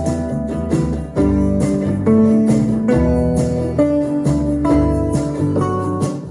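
Guitar-led instrumental music with a steady beat, played through a Marantz 2250B receiver and Infinity SL-20 speakers. It cuts off abruptly.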